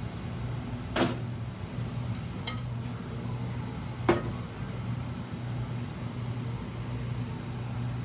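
Wooden chopsticks clicking sharply against a non-stick frying pan three times while an egg sheet cooks, over a steady low mechanical hum.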